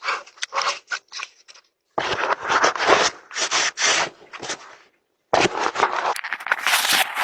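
Scraping and rubbing picked up by a doorbell camera's microphone in three rough stretches, the first broken into short pieces: the device itself being handled or covered.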